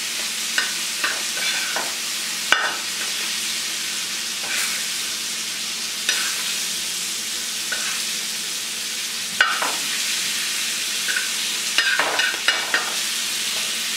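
Pomfret sizzling steadily in oil on a flat tawa over a low flame. A spatula scrapes and taps against the pan a dozen or so times as the fish is pressed and moved.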